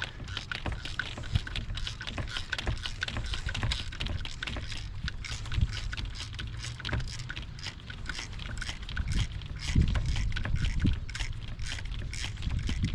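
Hand work on an engine's wiring harness and connectors: a busy run of small clicks and rattles over a low rumble, with a few dull knocks.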